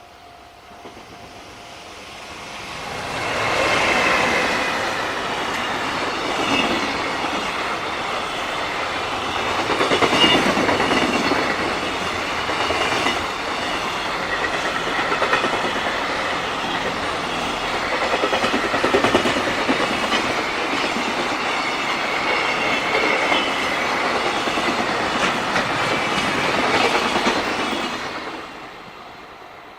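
JR Freight train passing close by: a long string of freight wagons clattering over the rail joints. It swells in over the first few seconds, stays loud with a steady run of wheel clatter, and dies away near the end.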